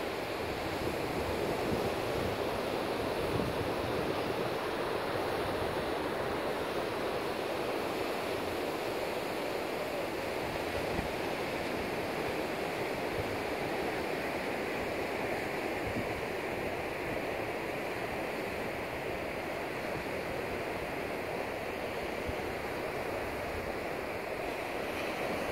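Ocean surf breaking and washing up on a sandy beach: a steady, even rush of water.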